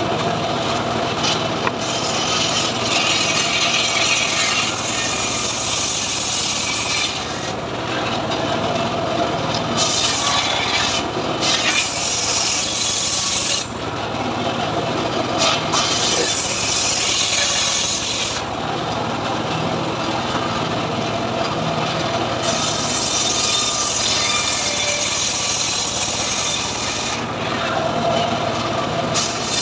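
Homemade cart-mounted circular table saw ripping a lamtoro (leucaena) log into boards. The blade rasps through the wood in several passes of a few seconds each, with short gaps where it spins free, over the steady hum of the saw's drive.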